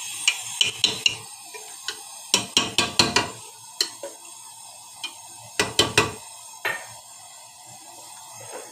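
Metal spoon stirring lentils in water inside an aluminium pressure cooker, clinking against the pot's side and bottom in irregular clusters of sharp clinks that thin out after about seven seconds.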